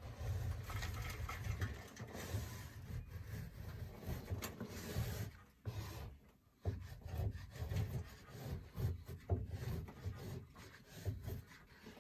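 Plastic spatula scraping dampened popcorn texture off a drywall ceiling in short, repeated strokes, with a brief pause about six seconds in.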